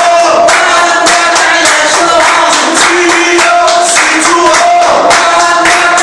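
A crowd of protesters chanting slogans in unison, with steady rhythmic hand-clapping keeping time.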